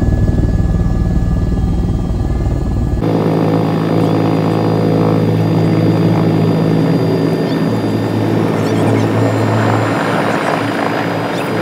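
Helicopter in flight heard from inside the cabin: a loud, steady rotor and engine drone. The sound changes abruptly about three seconds in.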